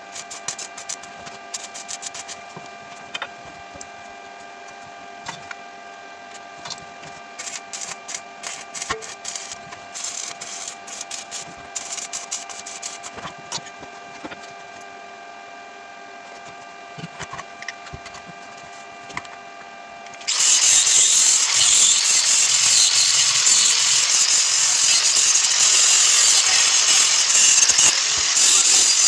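Light knocks and handling clicks over a steady faint hum. About twenty seconds in, a loud, continuous noise of a workshop tool working material starts suddenly and keeps going.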